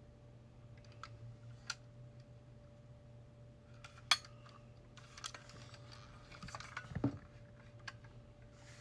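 Light handling noises of a diecast model car and its packaging: scattered small clicks, one sharp click about four seconds in, then rustling and a dull knock around seven seconds, over a steady low hum.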